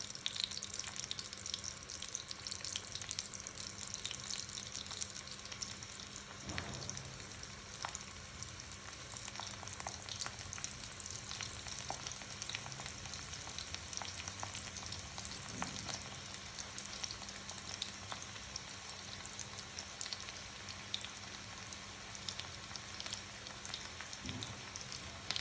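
Chopped garlic frying in hot oil in a ladle, a steady sizzle with fine crackles as the garlic browns for a tempering (baghar).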